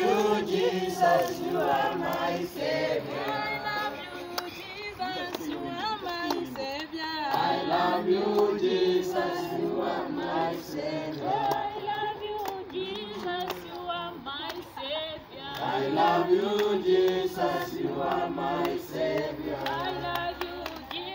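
A group of men and women singing together, choir-style, with wavering sustained notes.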